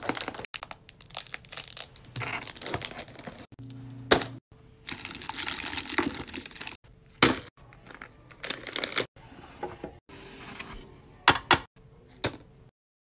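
Plastic candy wrappers and packaging crinkling and rustling as they are handled, with sharp crackles and taps at irregular moments; the sound stops abruptly near the end.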